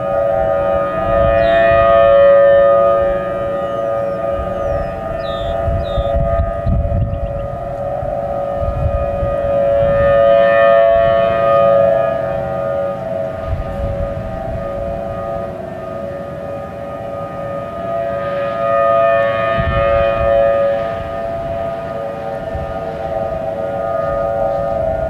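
Outdoor warning sirens sounding a steady alert tone together: a Federal Signal Modulator MOD5020 electronic siren, with Thunderbolt 1000T mechanical sirens in the distance. The tone swells and fades about every eight to nine seconds.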